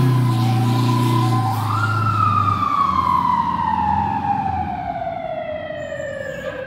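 Fire tanker's mechanical siren winding up once, then coasting down in a long, slow falling wail. A low air-horn blast sounds under it and cuts off about two and a half seconds in.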